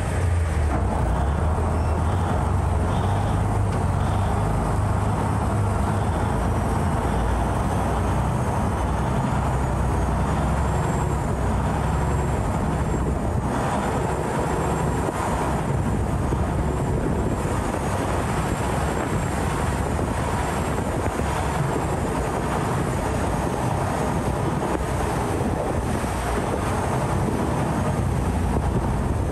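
Canal passenger boat's engine running with a loud, steady low drone.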